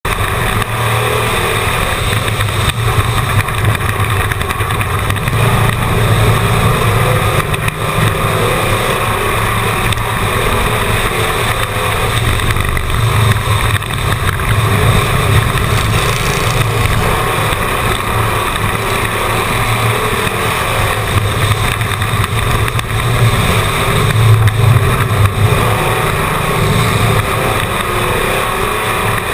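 Race car engine running hard and steadily as the car laps a short oval, heard loud and close from an on-board camera, with small swells in level.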